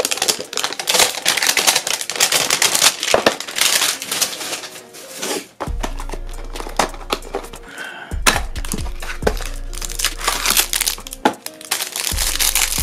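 Plastic wrapping of a Donruss football card pack crinkling, along with loose trading cards rustling and clicking as they are handled. Background music plays, and a bass beat comes in about halfway through.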